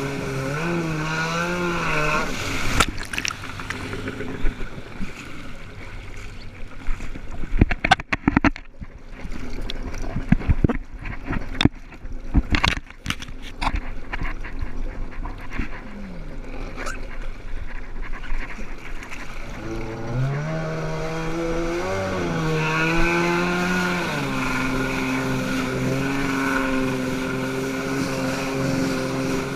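Stand-up jet ski engine running, its pitch shifting with the throttle. In the middle stretch the engine tone drops back under a run of sharp slaps and splashes from the hull hitting choppy water. About twenty seconds in the engine revs up again, wavers, then holds a steady pitch.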